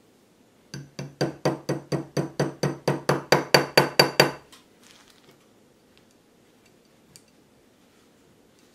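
Small hammer tapping a pin into the steel frame of a Browning Hi-Power pistol to retain the sear lever: about twenty quick metallic taps, some five a second, growing louder and then stopping.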